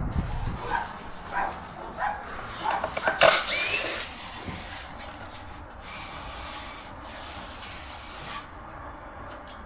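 Wooden form boards being handled and pulled loose, with scraping and several knocks in the first few seconds, then a quieter stretch.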